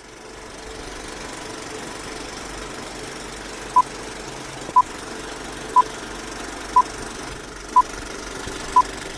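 Short electronic beeps at one pitch, evenly spaced one second apart, six in a row starting a little before halfway, over a steady background hum and hiss.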